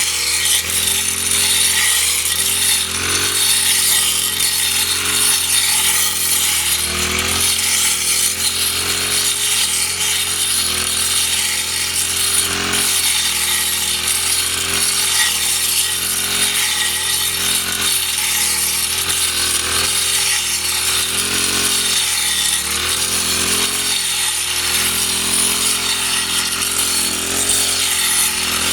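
Small two-stroke brush cutter running continuously while cutting grass, its engine pitch dipping and recovering over and over as the blade takes load.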